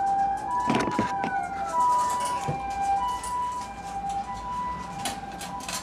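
Two-tone hi-lo siren of a passing ambulance, heard from outside, steadily alternating between a higher and a lower note about every half second. A few sharp clatters sound over it, about a second in and near the end.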